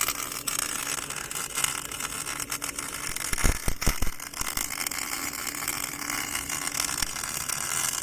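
Portable line boring machine running with a steady mechanical hum, with a few sharp knocks about three and a half seconds in.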